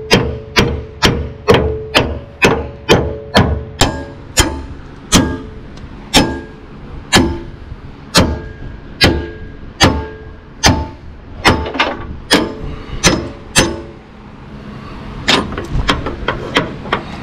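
Hammer striking a steel chisel to cut out the rivets that hold a leaf-spring bracket to a steel truck frame, each blow a sharp ringing clang. The blows come about two a second at first, slow to about one a second, pause briefly near the end, then resume lighter and quicker.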